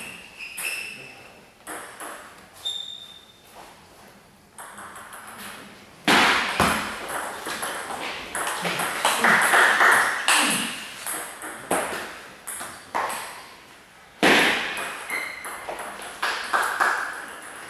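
Table tennis balls clicking off bats and ringing on the tables in rallies, many short sharp ticks. A louder rush of noise runs through the middle, about six to eleven seconds in, and again briefly near the end.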